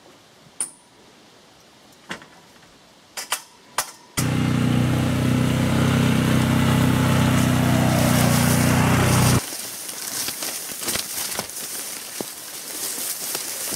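A few light clicks and knocks, then an ATV engine running steadily for about five seconds that cuts off suddenly. After that come rustling, crackling footsteps through brush and leaves.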